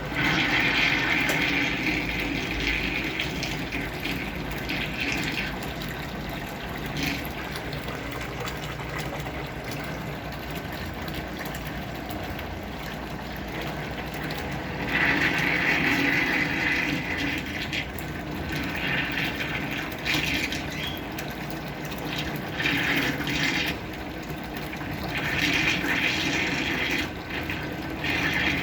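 Brastemp Clean 6kg washing machine filling with water: a stream of water pours into the tub with a steady hiss, growing louder in several surges a few seconds long.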